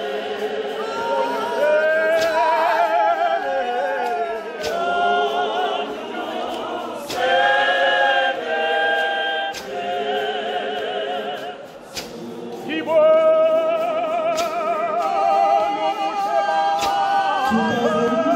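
Mixed church choir of men and women singing in parts, with wavering held notes. The singing drops away briefly about twelve seconds in, then comes back at its loudest.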